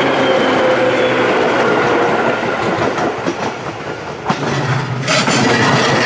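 Electric commuter trains running past a level crossing: steady wheel-on-rail running noise, with a faint whine slowly falling in pitch at first. After a brief dip and a sharp click about four seconds in, the noise swells louder from about five seconds as a JR Kawagoe Line E233-series train passes close by.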